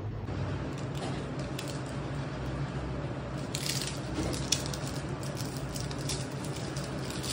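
Whole peppercorns and dry seasoning scattered by hand onto raw swordfish cubes in a steel tray, giving a scatter of small ticks from about halfway in. A steady low hum runs underneath.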